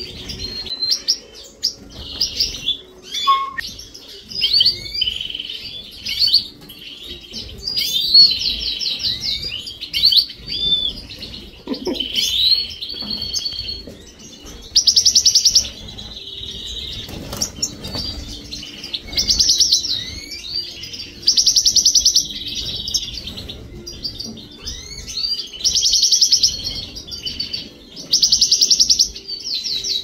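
Many caged songbirds in a breeding room, canaries and finches among them, chirping and singing over one another. In the second half several fast, rolling trills come every few seconds.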